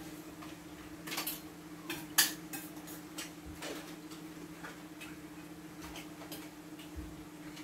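Metal spoon clicking and scraping against a stainless steel bowl of rice during eating, in irregular light clicks, the sharpest about two seconds in. Under it runs a steady low hum.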